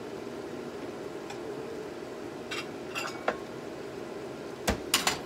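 Ceramic dishes clinking a few times, then a quick cluster of sharp knocks and clinks near the end as a bowl is fetched, over the steady hum of a kitchen range-hood fan.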